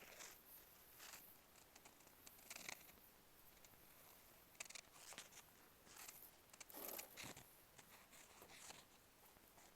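Faint, irregular crackling and crunching of cement chunks being crumbled, with a louder cluster of crunches about seven seconds in.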